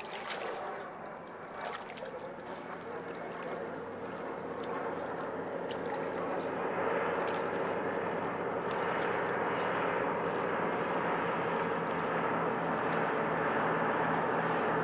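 Twin Pratt & Whitney R-1830 radial engines of a PBY Catalina flying boat running in a steady drone. The drone grows louder over the first several seconds, then holds as the aircraft flies low over the lake and skims its hull onto the water.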